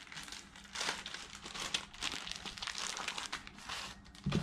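Clear plastic bag crinkling in irregular crackles as it is opened and a black speaker grill cloth is pulled out of it.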